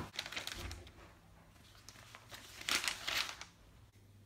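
Newspaper pages rustling and crinkling as they are handled and turned: a short rustle at the start and a louder one about three seconds in.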